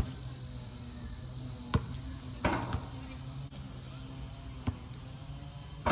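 A basketball bouncing on an outdoor hard court: a few separate sharp bounces a second or more apart, over a steady low hum.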